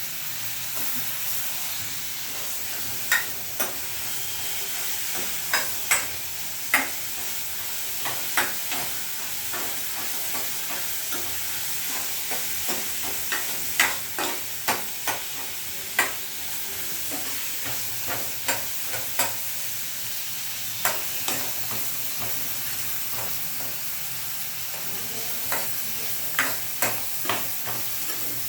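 Chopped onions and coriander leaves sizzling steadily in hot oil in a pan, with irregular sharp clicks and scrapes of a spoon against the pan as they are stirred.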